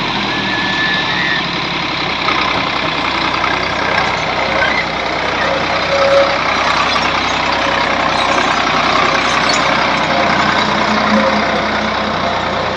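Ford 3610 tractor engine running steadily.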